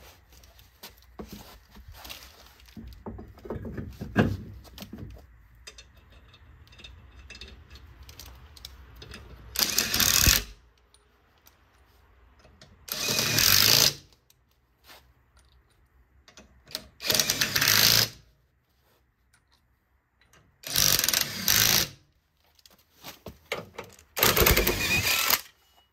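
Impact wrench hammering in five short bursts of about a second each, with a few knocks of handling before the first. It is raising a car jack through a welded-on nut and spinning the wheel fixings off and on during a quick wheel change.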